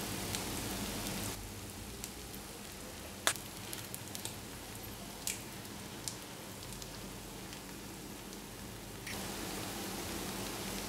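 Fried rice sizzling in an enamelled cast-iron skillet, a steady frying hiss with a few sharp clicks and crackles. The sizzle drops quieter about a second in and comes back louder near the end.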